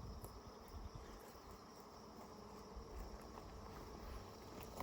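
Honeybees buzzing around an open hive, a faint steady hum.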